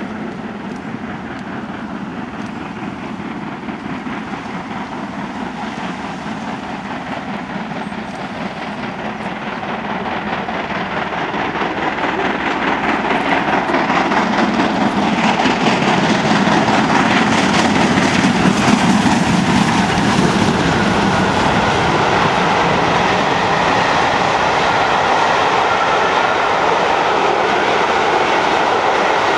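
Two steam locomotives, GWR Castle class 4-6-0 5029 Nunney Castle and BR Britannia Pacific 70013 Oliver Cromwell, double-heading a passenger train and working under steam as they approach. The sound grows louder from about ten seconds in and stays loud as the locomotives and then the coaches roll past.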